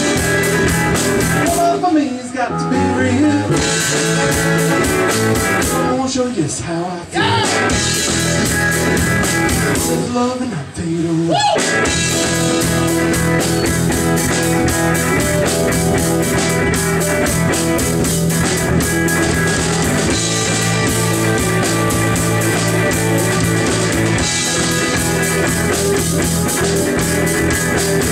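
Live rock band playing amplified electric guitars, bass and drum kit. The first stretch stops and starts, with sliding guitar notes in the gaps, and the full band settles into a steady groove about twelve seconds in.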